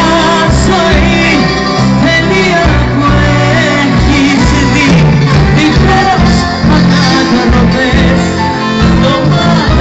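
Live band playing a Greek pop song while a woman sings the lead into a microphone, over sustained bass notes.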